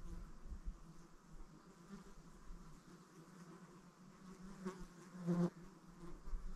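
A flying insect buzzing, a faint wavering hum that swells briefly about five seconds in as it comes close.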